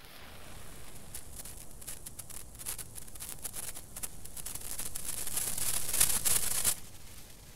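Senkō hanabi (Japanese incense-stick sparkler) crackling as its glowing ball throws off sparks. The quick snapping crackles grow denser and louder, then cut off suddenly near the end.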